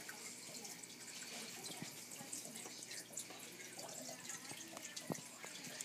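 Faint trickling and dripping of aquarium water, bubbling from the tank's aeration or filter, with scattered small clicks.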